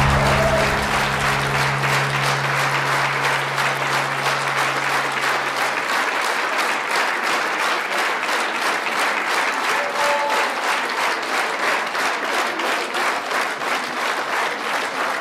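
Theatre audience applauding a ballet curtain call. The last held low note of the music dies away about six seconds in.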